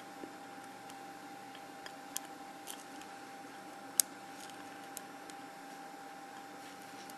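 Faint, scattered metallic clicks of a pick turning the discs inside a Zone disc-detainer lock during single-pin picking, with one sharper click about four seconds in.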